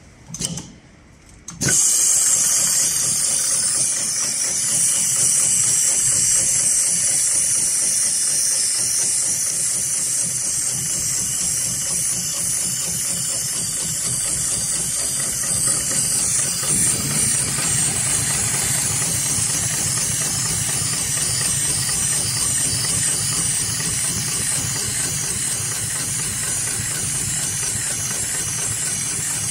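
HighTex 71008R automatic rope sewing machine starting up about two seconds in and running steadily as it stitches a zigzag bartack through a climbing rope. A loud steady air hiss sits over the fast mechanical running of the needle drive.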